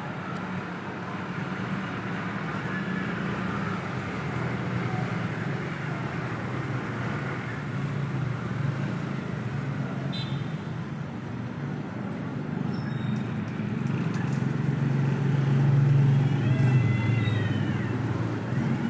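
Steady low rumble of urban traffic that swells for a few seconds late on. Near the end, cats yowl in drawn-out, rising-and-falling wails, the sound of a cat standoff.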